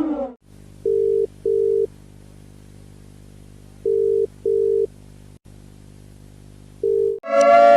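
Emergency alert audio played in reverse: short beeps, a pair, then another pair, then a single one, over a steady low hum. Near the end a steady multi-tone siren wail cuts in loudly.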